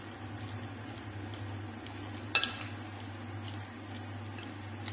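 Metal spoon stirring a chunky filling of chicken, potato cubes, cheese and parsley in a glass bowl, a soft steady scraping and squelching, with one sharp clink of spoon on glass about two and a half seconds in. A steady low hum runs underneath.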